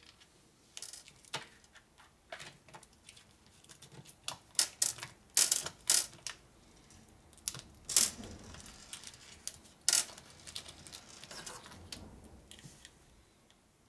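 Irregular sharp clicks and crackles of small lock washers being pushed out of individual plastic blister packs, with a cluster of louder pops and snaps in the middle.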